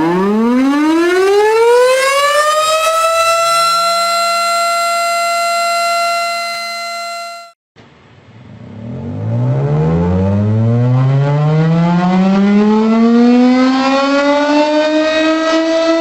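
Tornado siren winding up, its pitch rising quickly to a steady howl that cuts off abruptly after about seven and a half seconds. A second, lower-pitched tornado siren then winds up more slowly and levels off into a steady tone.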